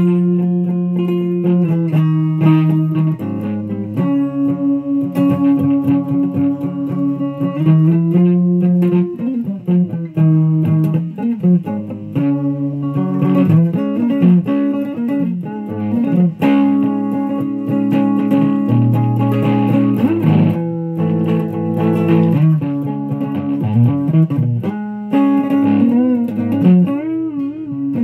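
Electric guitar played through a Fuzz Face fuzz pedal running on a run-down battery, giving the horrible sounds. It plays held notes and chords that change every second or two, with wavering, bent notes near the end.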